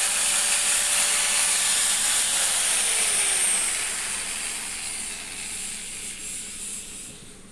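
Hand cutter machine's electric motor running at speed on a test run with its newly fitted armature, a steady high hiss and whine. About two and a half seconds in it is switched off and winds down, its pitch falling and the sound fading.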